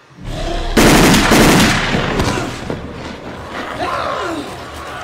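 A loud burst of rapid gunfire starting about a second in, followed by continuing noisy commotion.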